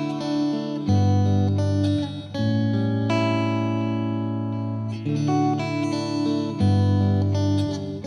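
Slow instrumental guitar music: plucked notes and chords ringing on, the bass note changing every second or two.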